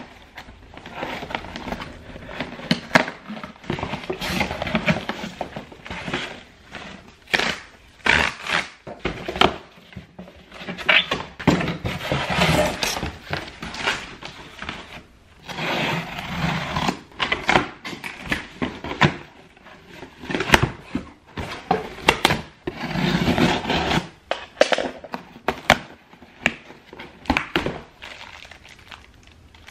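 Packaging being handled and opened: irregular rustling and crinkling with many sharp clicks and knocks.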